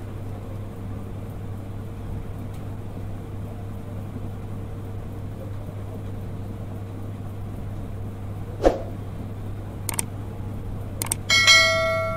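A steady low hum of room background, broken near the end by a few sharp clicks. Then comes a single bell-like ringing strike with several tones, fading over about a second and a half.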